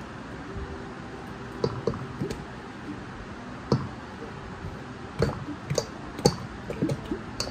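A string of irregular sharp clicks and knocks, more frequent in the second half, from a can of coconut milk and a wooden spoon knocking against a stainless steel mixing pot as the thick milk is emptied onto dough.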